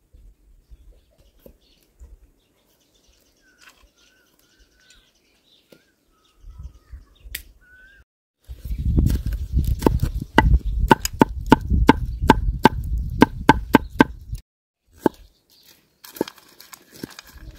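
A cleaver chopping a bell pepper on a wooden cutting board: a fast run of sharp knocks, about three a second, for some six seconds from about halfway through, with a low rumble beneath and a few more chops near the end. Faint bird calls come before the chopping.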